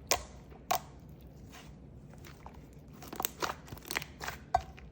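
Clay slime being squished and stretched by hand, making sharp crackling clicks and pops: two near the start, then a quicker run of clicks in the second half.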